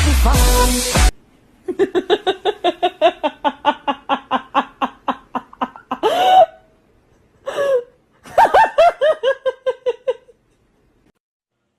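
Hearty laughter: a long run of quick ha-ha-ha pulses, then two louder whooping cries, then another run of quick laughs that stops short. Background music cuts off about a second in.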